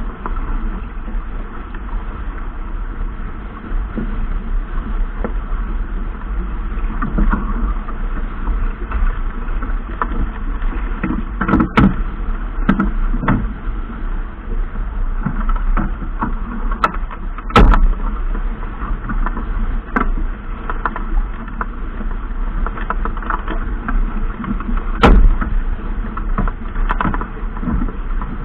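Steady low rumble and rushing noise of a boat out on the water, with a few sharp knocks scattered through, the loudest about two-thirds of the way through and near the end.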